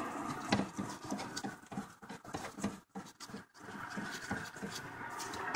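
Scattered light clicks and rattles as a threaded switch is worked into a clutch pedal bracket under the dashboard by hand. A soft rushing noise sits under it at the start and again in the last second and a half.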